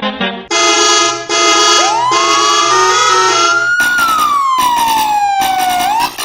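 An emergency-vehicle siren wails, rising in pitch for about two seconds and then slowly falling, with a quick upturn near the end. It plays over loud, repeated musical chords.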